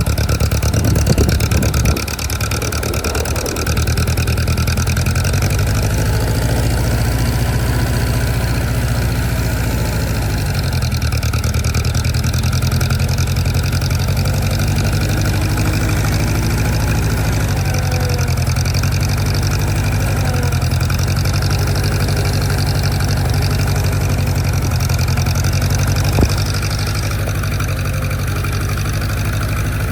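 An engine running steadily at low speed, with a brief dip in level about two seconds in and a single sharp knock near the end.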